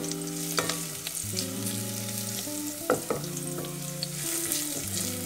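Chopped onion and garlic sizzling in hot oil in a steel pot while being stirred with a wooden spoon, which knocks against the pot a few times.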